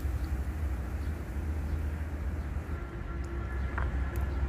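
A steady low rumble with hands squishing and picking through wet mud emptied from a fish trap; a faint steady hum joins about three seconds in.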